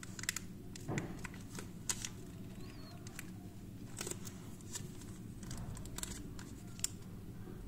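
Clear plastic wrapper being peeled and slid off a smartphone by hand: quiet crinkling with scattered light clicks.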